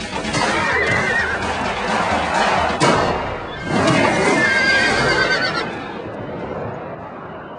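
Clydesdale horses whinnying twice, once about half a second in and again around the middle, over music, with a sharp thump a little under three seconds in.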